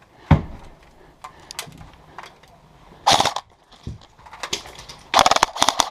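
Airsoft guns firing short rapid bursts: one about three seconds in and another near the end, with a thump just after the start and scattered clicks between.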